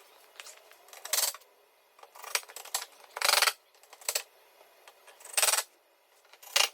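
Hand-tool work on the splitter's fasteners: about six short clicking, rasping bursts a second or so apart, the loudest a little past a third of the way in.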